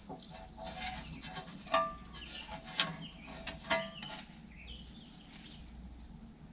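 Ratchet wrench clicking and metal tools clinking as the bolts of a rear air strut are tightened: a run of sharp ticks and short ringing metallic notes, one louder clink about three seconds in, then quieter.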